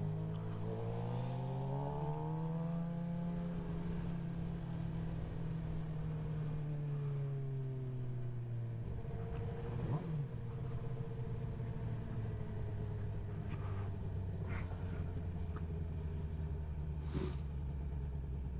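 Suzuki GSX-R sportbike engine running under the rider: its pitch rises over the first few seconds, sinks slowly as it eases off, then settles low and steady from about nine seconds in. There is a sharp click about ten seconds in and two short hissy bursts near the end.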